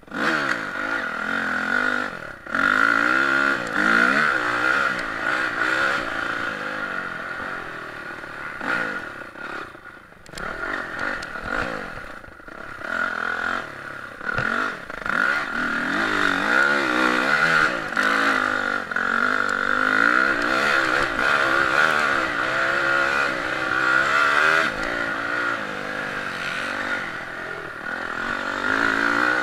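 Dirt bike engine heard from the rider's helmet, revving up and falling back over and over as the throttle is opened and shut around a motocross track, with several brief drops where the throttle is cut.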